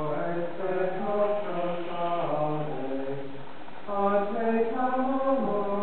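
Liturgical chant of the Mass: voices intoning the text on long held notes that step between a few pitches, briefly falling away about three seconds in before resuming.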